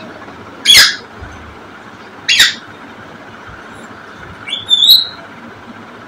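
African grey parrot calling: two short, harsh screeches about a second and a half apart, then a short whistle that rises in pitch near the end.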